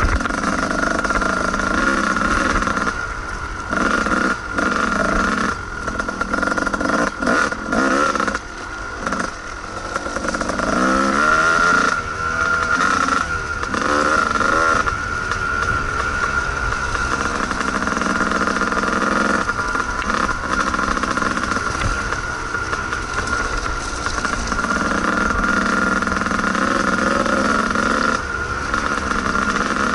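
Kawasaki KDX220 two-stroke dirt bike engine running while ridden, the throttle opened and closed so the revs rise and fall, with a run of quick rising and falling revs about halfway through.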